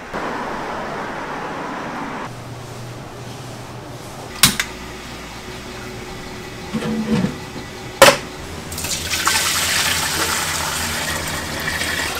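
A thick stream of milky white liquid pouring into a stainless steel pot with a steady splashing rush through the last few seconds. Before that, two sharp metallic knocks as a large steel pot is handled on a gas burner.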